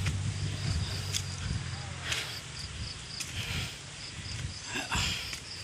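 Insects chirping in a steady rhythm, a short high pulse about three times a second, over a low hum that dies away about two seconds in, with a few short rustles.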